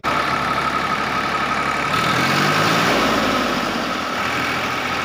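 A motor running steadily, a rough even hum with a constant high whine.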